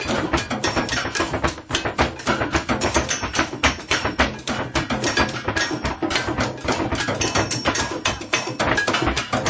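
Rhythmic drumming on kitchen objects: a fast, dense run of sharp hits kept up without a break.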